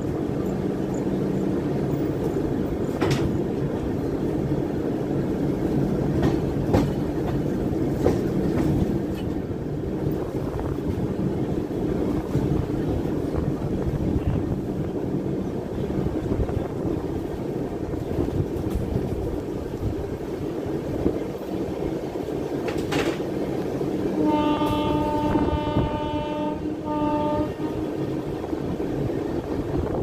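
Moving train heard from on board the coach: steady rolling rumble with occasional sharp clicks of wheels over rail joints. About 24 seconds in, a locomotive horn sounds one long blast and then a short one.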